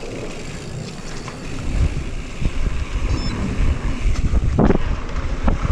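Wind buffeting the helmet-mounted camera's microphone as a mountain bike gathers speed down a dirt trail, the rumbling getting much heavier about two seconds in. A sharp rattle from the bike comes near the end.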